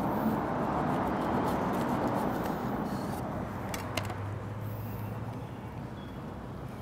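Chef's knife cutting down through a burger's toasted bun, avocado and lettuce, giving a soft crunching rustle that fades over a few seconds, with a few light clicks around the middle as the halves are handled.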